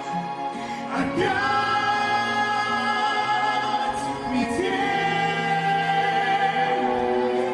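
A sung pop ballad with instrumental backing. Long held vocal notes, with a new phrase starting about a second in.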